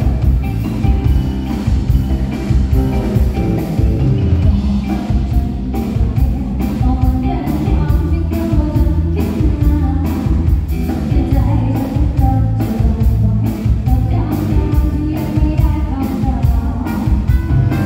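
Live band playing a rock-style song: a drum kit keeps a steady, even beat under bass, guitar and singing.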